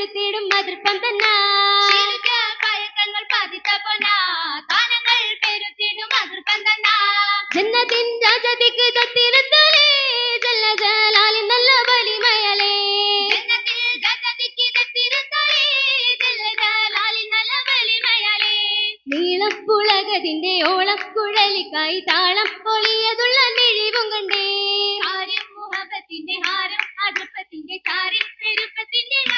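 Girls' voices singing an Oppana song (Mappila song) over a microphone, with the dancers' rhythmic hand-clapping keeping time throughout. The singing pauses briefly about two-thirds of the way in, then starts a new phrase.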